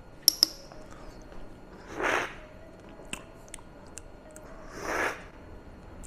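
A metal teaspoon clinks twice against a small glass espresso cup just after the start. Then comes two loud slurps of espresso, about 2 s and 5 s in, drawn in with air in the way of a taster.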